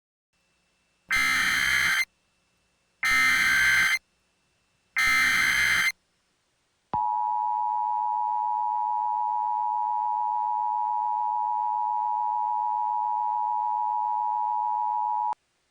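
Emergency Alert System alert tones: three one-second bursts of screeching SAME data tones at two-second intervals, the encoded header that opens an alert. About seven seconds in, the two-tone EAS attention signal starts and holds steady for about eight seconds before cutting off abruptly.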